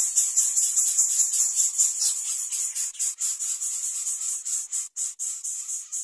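Greater coucal nestlings begging in the nest: a loud, high rasping hiss pulsing about six times a second. About two-thirds of the way through it breaks up into separate rasps with short gaps.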